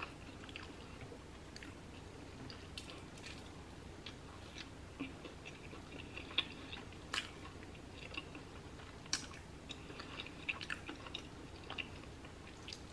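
A person chewing and biting mouthfuls of a cheesy buffalo chicken quesadilla: faint, irregular mouth clicks and smacks, with a few louder ones about seven and nine seconds in.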